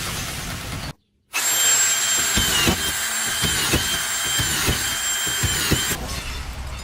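Electric power drill running with a high whine whose pitch dips briefly about once a second, with light knocks alongside. It starts after a short silence about a second in and eases off near the end.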